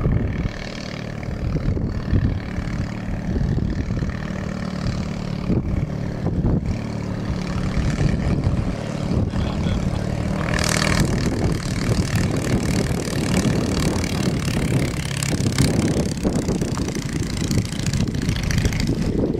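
Legal Eagle ultralight's half-VW engine running steadily as the plane lands and rolls along the runway, with wind noise on the microphone and a short gust-like rush about ten seconds in.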